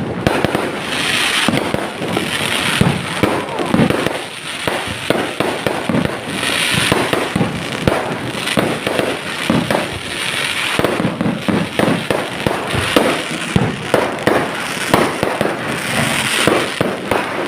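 Fireworks going off: many bangs and pops in quick succession, with stretches of hissing crackle between them.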